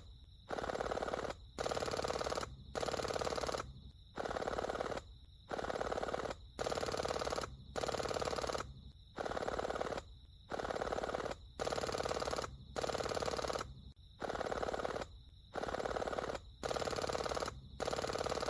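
Airsoft P90 fired in repeated full-auto bursts: about sixteen bursts, each roughly a second long, with brief pauses between them.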